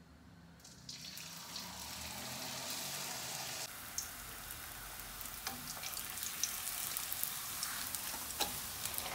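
A thin sheet of filaliya dough sizzling and bubbling in hot oil in a frying pan. The steady frying hiss starts about a second in as the dough goes into the oil, with a few sharp pops.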